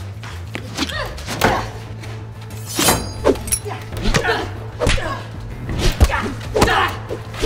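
Staged fight: about half a dozen sharp thuds and whacks of weapon blows, some landing on a clear plastic riot shield, mixed with grunts and yells of effort, over a film music score with a steady low drone.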